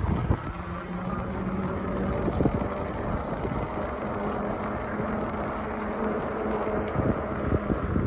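A vehicle running steadily while moving slowly, with a steady low hum and wind rumbling on the microphone.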